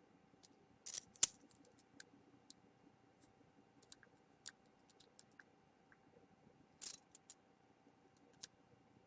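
Faint, scattered small clicks and light scrapes of a precision screwdriver working tiny screws into an iPhone 4's internal frame. There are two short scraping rasps, one about a second in with a sharp click right after it, and one near seven seconds.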